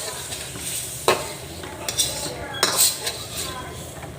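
A spatula scraping and knocking against a pan while stir-frying vegetables, with the food sizzling underneath; the sharpest scrapes come about one, two and three seconds in.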